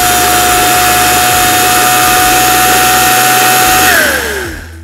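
Electric mini food chopper running, a steady high motor whine over the rattle of the blades. About four seconds in it is switched off, and the whine drops in pitch as the blades spin down to a stop.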